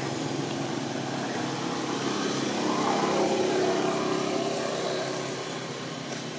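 A motor engine running with a steady hum, growing louder about three seconds in and then fading away, as a vehicle passing by would.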